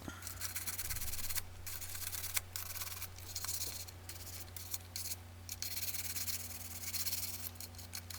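Stiff-bristled brush scrubbing dirt out of a computer mouse: a dry, scratchy rasping in strokes with a few brief pauses, over a steady low hum.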